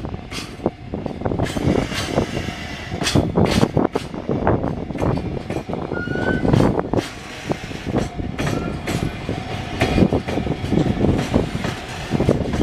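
A train passing close by, its wheels clattering and knocking over the rails in quick, irregular beats, with one short high squeak about halfway through.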